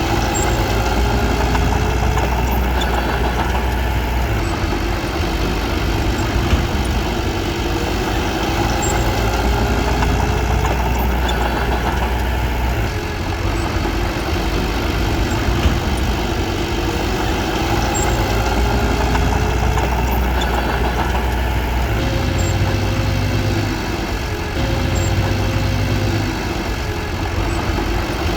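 Diesel engine of heavy earthmoving machinery running steadily, with a low rumble whose pitch and level shift a few times as the load changes.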